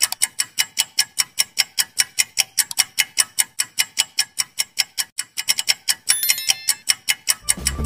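Clock-ticking sound effect marking a quiz countdown timer: quick, even ticks several times a second. A brief ringing comes in about six seconds in, and music starts again just before the end.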